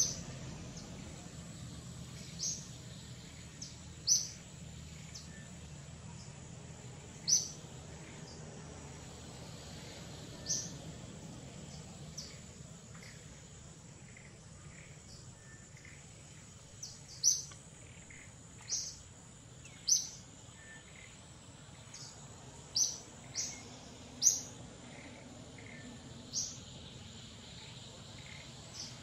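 Birds chirping: about a dozen short, high calls at irregular intervals over a faint steady hiss and a thin, steady high tone.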